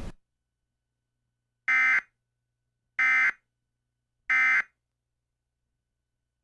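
Emergency Alert System end-of-message data tones: three short, identical digital screeches about a second and a half apart, signalling the close of the alert broadcast.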